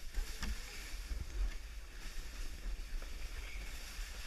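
Black plastic sled being towed over packed snow: a steady scraping hiss under a low rumble, with a couple of sharp knocks in the first second or so.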